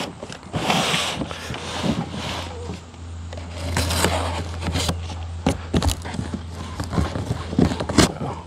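Packing tape being cut and ripped off a cardboard shipping box, with the cardboard flaps scraping and rustling as they are pulled open. Sharp knocks and crackles of cardboard come in the second half, over a steady low hum.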